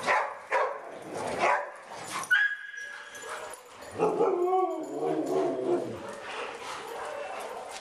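Several dogs barking in rough play, sharp barks in quick succession, with a brief high whine a little past two seconds in and a drawn-out wavering vocal call from about four to six seconds in.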